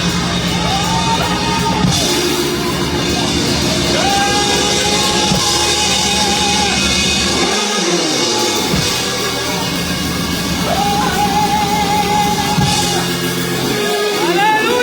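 Loud live praise music with a drum kit and long held, wavering melody notes.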